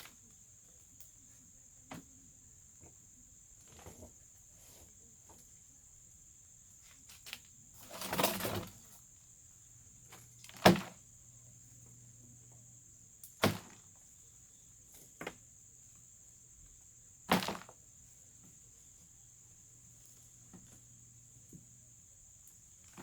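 Scattered knocks, thuds and rustles of soil and sweet potatoes being handled in a plastic bucket and wheelbarrow, about eight in all, with a longer rustle about eight seconds in and the loudest knock near eleven seconds. A steady high-pitched hum runs underneath.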